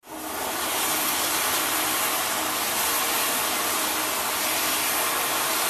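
Sydney steam tram #100 letting off steam: a steady, even hiss that comes in suddenly at the start and holds throughout.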